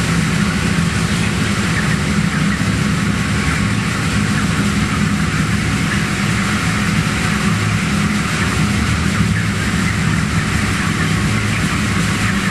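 Ventilation fans in a broiler house running with a steady low hum, under a dense haze of many short cheeps from the flock.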